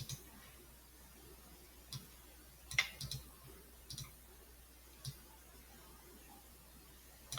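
Computer mouse buttons clicking, about eight sharp clicks at irregular intervals, a few in quick pairs.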